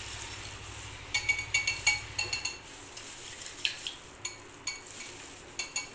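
Wire whisk beating batter in a glass bowl: the metal wires clink against the glass in quick runs of taps, then in scattered single taps near the end.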